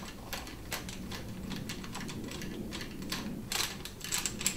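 Small metallic clicks and ticks as an Allen key is turned in the clamp bolt of a mountain bike's front brake lever to loosen it, scattered at first and coming in a quicker cluster near the end.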